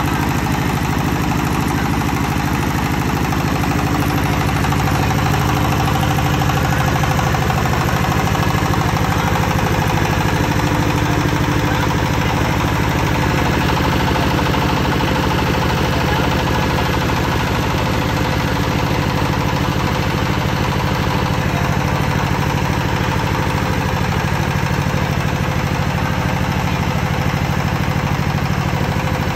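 A single-cylinder diesel engine running steadily under load, driving a floating fish feed extruder that is turning out pellets.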